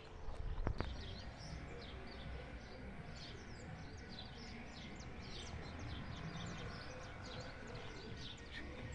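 Small birds chirping outdoors, many short quick calls one after another, over a low rumble of wind or handling noise. Two sharp clicks come just under a second in.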